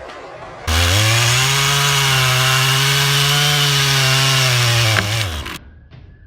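Chainsaw engine running at high revs for about five seconds. It starts abruptly under a second in, rises slightly in pitch, holds steady, then drops in pitch and cuts off abruptly.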